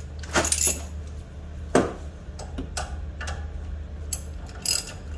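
Hand ratchet wrench clicking in short, irregular strokes as a bolt on the front suspension is tightened, with the sharpest clicks about half a second and just under two seconds in. A steady low hum runs underneath.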